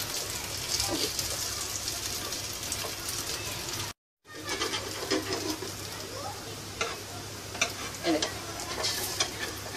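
Potato patties shallow-frying in oil in a frying pan, a steady sizzle, with a spatula scraping and clicking against the pan as the patties are turned over. The sound cuts out for a moment about four seconds in.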